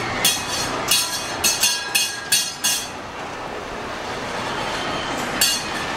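Small brass bells on kiddie-ride boats being rung: a quick run of sharp rings in the first three seconds and one more near the end, over the steady rush of water churned by the ride.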